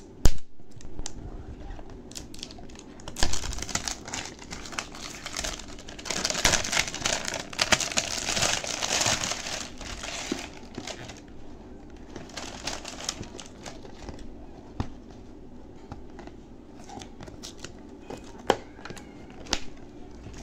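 Clear plastic shrink wrap crinkling and tearing as it is peeled off a plastic baby-wipes tub. The crinkling is loudest in the middle, mixed with scattered sharp clicks and knocks from hands on the hard plastic, the loudest just after the start.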